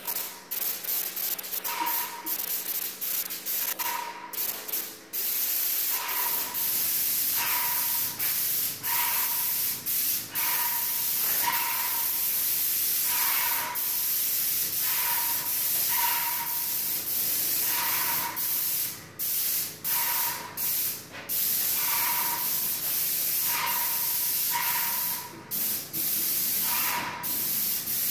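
Airless paint spray gun hissing as paint is sprayed in repeated passes, the trigger pulled and released so the hiss stops and restarts every second or two. A brief whistle-like tone sounds at the start of many passes.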